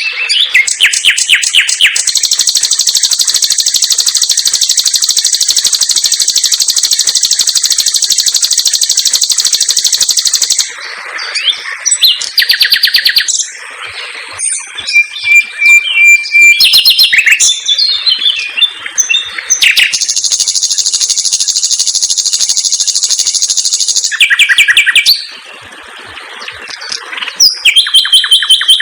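Common nightingale singing loudly in a varied song. It opens with quick repeated notes, then holds a very fast, high trill for about eight seconds. Next come mixed short phrases and whistles, a second long trill, and bursts of rapid repeated notes near the end.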